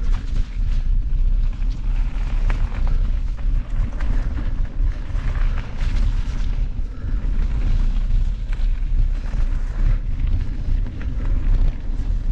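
Wind buffeting the microphone of a mountain bike ride camera with a constant low rumble, over the rattle and crunch of the bike's tyres and frame on a rough trail descent, with frequent sharp knocks and clatters.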